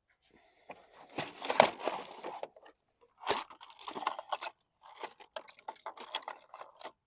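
Metal hand tools clinking and clattering while being rummaged through for a wrench, with irregular rattles and one sharp clank about three seconds in.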